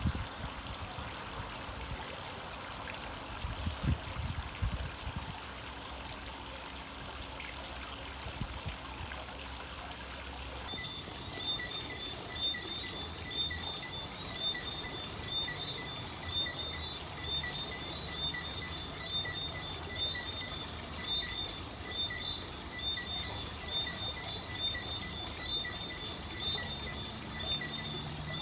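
Water trickling and pouring steadily on a granite water feature. From about a third of the way in, a faint high chirp repeats roughly once a second behind the water.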